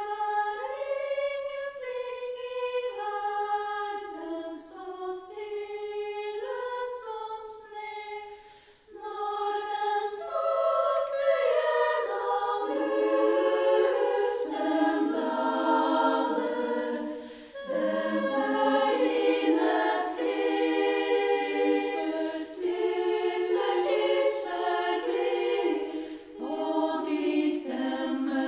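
Women's choir singing in a church. It opens on a thinner melodic line and fills out into fuller, lower harmony about ten seconds in, with brief breaths between phrases.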